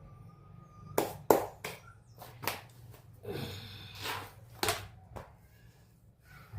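Objects being handled and knocked against a hard surface: a string of sharp knocks and clicks, about seven in five seconds, with a short scraping rustle in the middle.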